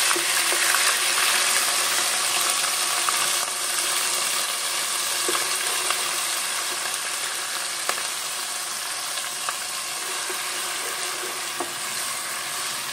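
Ginger-garlic paste sizzling in hot oil with whole spices, the sizzle slowly dying down. There are a few light clicks of a spoon stirring in the pan.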